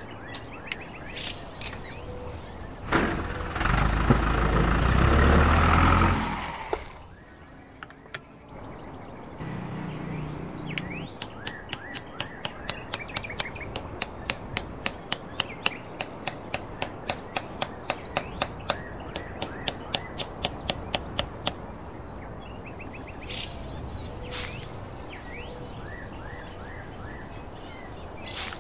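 Birds chirping in the background. A few seconds in comes a loud low rumble lasting about three seconds, and later a long run of evenly spaced clicks, about three a second, that stops shortly before the end.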